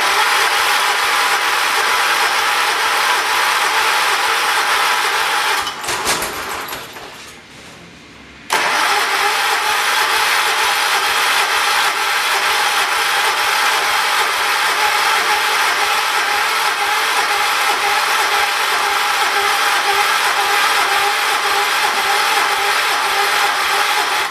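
The Kohler single-cylinder engine of a John Deere 212 lawn tractor cranking on its electric starter: about six seconds of cranking that fades off, a short pause, then a long crank of about sixteen seconds that cuts off abruptly. It turns over but will not start.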